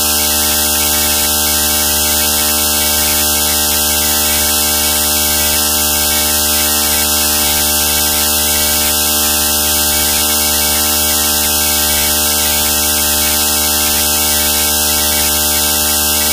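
Loud, unchanging electrical hum and buzz with a hiss over it: a low hum with many steady tones stacked above it.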